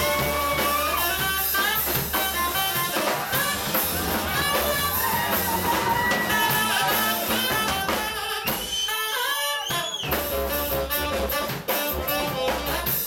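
Live small jazz combo playing: a saxophone melody with bending notes over drum kit and upright bass. About two-thirds of the way through, the drums and bass drop out briefly while the saxophone plays on alone.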